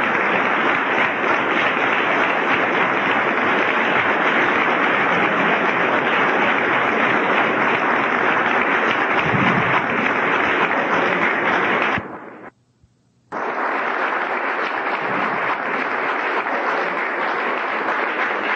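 Audience applauding steadily. The sound drops out completely for about a second, two-thirds of the way through, then the applause carries on.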